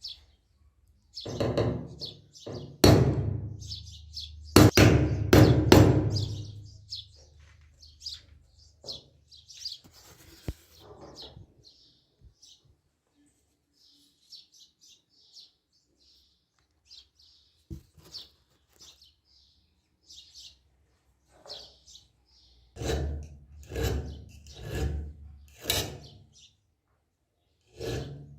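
Knocks and handling noise from work on an old folding knife: a cluster of sharp strikes in the first few seconds, then quieter until four strokes about a second apart near the end. Small birds chirp in the background throughout.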